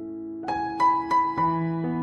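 Soft background piano music: held notes, then a short run of struck notes starting about half a second in, followed by a sustained low note.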